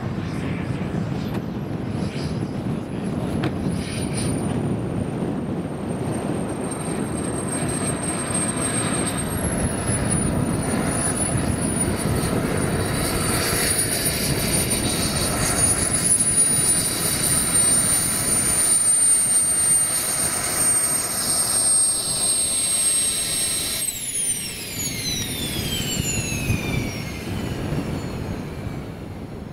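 Wren 160K Pro model jet turbine running: a high thin whine over a steady jet rush. Near the end the whine falls steeply in pitch and the rush dies away as the turbine spools down.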